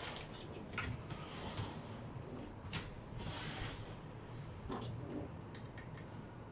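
Scattered clicks, taps and a short scrape, with a brief scraping rush about three seconds in, from the plastic and metal parts of an LCD monitor being handled and pried apart.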